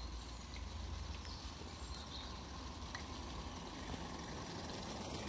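A pair of live-steam 16mm-scale garden railway locomotives running faintly as they haul a long train of wagons closer, over a steady low rumble with a few light clicks.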